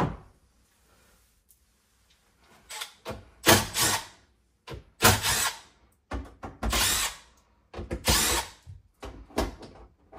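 Cordless drill running in five short spurts, each about a second or less, starting about three seconds in, backing screws out of the air handler cabinet's sheet-metal panels.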